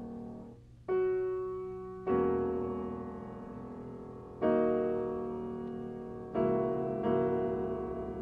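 Solo piano playing a slow, quiet chorale of sustained chords with deep bass octaves. About five chords are struck a second or two apart, each held and left to fade in an organ-like manner.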